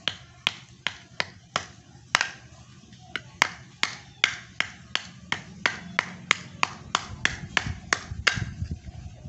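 Kitchen knife blade chopping at hard ketapang (tropical almond) nuts on a wooden cutting board: quick, sharp knocks about three a second. The shell is stone-hard and the knife is blunt.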